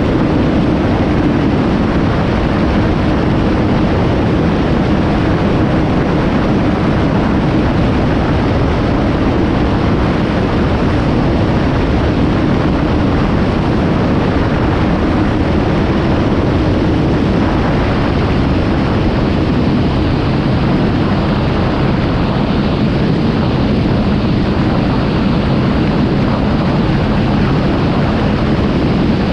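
Kawasaki Z750 motorcycle under way, its engine running steadily under heavy wind rush on the microphone. The engine note settles lower about two-thirds of the way in.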